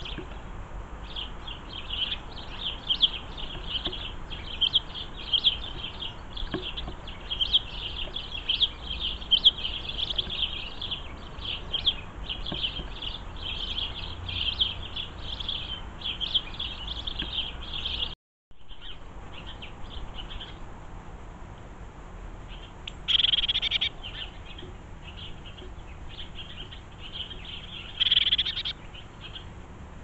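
Small garden birds chirping and twittering densely and continuously. After a sudden cut about 18 seconds in, the chirping is sparser, with two brief louder bursts about 23 and 28 seconds in.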